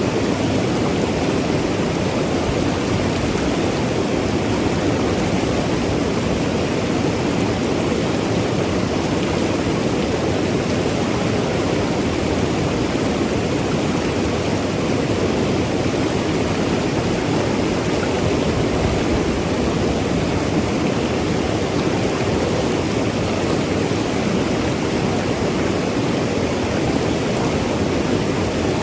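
Mountain river rushing and gurgling over rocks: a steady, unbroken water noise, strongest in the low-middle range.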